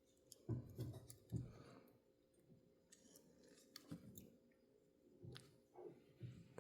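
Faint clicks and soft taps of small parts and tools being handled while reassembling a model locomotive, with a few low thumps about half a second and a second and a half in.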